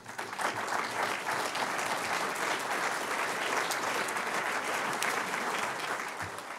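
A large seated audience applauding steadily; the clapping fades near the end.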